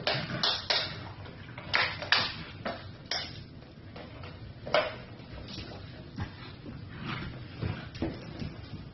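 Several puppies wrestling on a hard tiled floor: scuffling and paw clicks with irregular short sharp sounds, the loudest about two seconds in and near five seconds.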